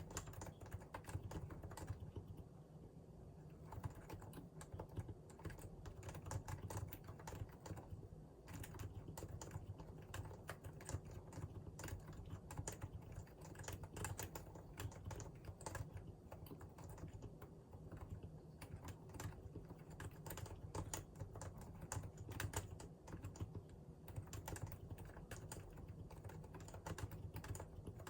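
Typing on a Realforce R2 PFU limited edition keyboard with Topre electrostatic capacitive switches. The key presses come as a fast, continuous run of soft clicks, with a few brief lulls.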